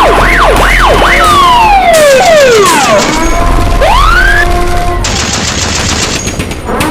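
A chaotic sound-effects track of emergency sirens: several wails overlap, sweeping up and down in pitch over a low rumble. About five seconds in, a fast rattle joins them, and a fresh siren wail rises near the end.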